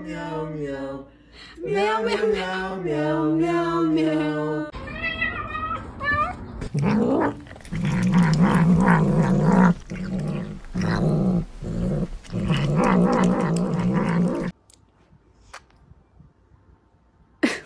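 Domestic cats vocalising: drawn-out, wavering meows, then a long series of low, rough growling calls in short repeated bouts, which stop suddenly about fourteen seconds in. A brief loud call comes near the end.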